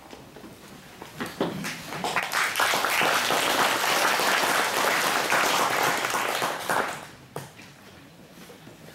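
Audience applauding: the clapping builds about a second in, holds for several seconds, and dies away near seven seconds, followed by a single knock.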